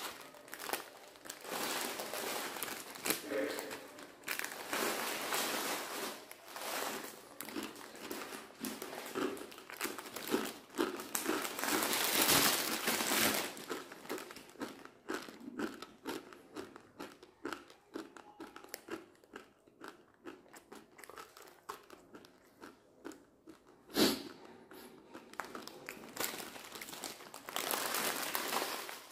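Plastic instant-noodle packet crinkling while dry, uncooked instant noodles are bitten and crunched straight from the packet, with close-up chewing. There are many sharp cracks, busiest in the middle, and a single loud crack late on.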